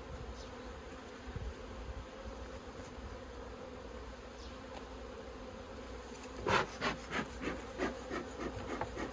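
Honeybees buzzing around an open hive, a steady hum. From about six seconds in, a run of sharp scraping clicks, roughly three a second, comes in over the buzz.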